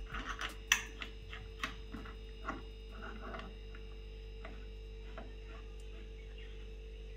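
Light clicks and taps of a chrome wall-mounted sink mixer being handled and offered up to its threaded wall connectors while its fit is adjusted, mostly in the first few seconds. After that only a faint steady hum remains.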